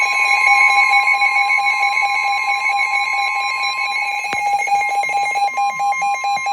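NOAA weather radios sounding an emergency alert together. The steady Weather Radio alert tone near 1 kHz is layered with the radios' own shrill alarm tones. There is a single click about four seconds in, and the lower tone turns to rapid pulsing near the end. The alert signals an incoming severe thunderstorm warning.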